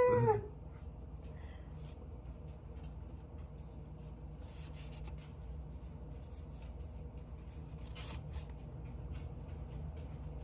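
Faint, intermittent rustling and scraping of hands folding a thin egg roll wrapper, which slides over a foam plate, over a low steady room hum.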